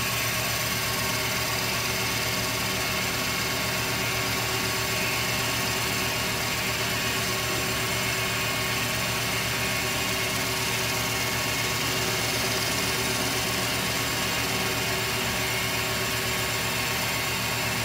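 A CNC-converted 9x20 benchtop lathe running steadily through a finish pass on a turned fitting: an even motor hum and whine over a steady hiss, with no change in level.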